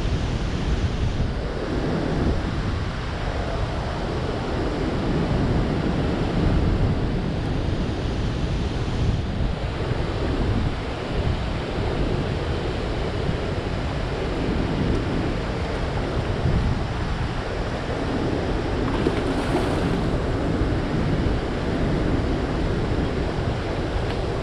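Steady rushing of turbulent water from dam spillway flood gates releasing a heavy flow, mixed with wind buffeting the microphone.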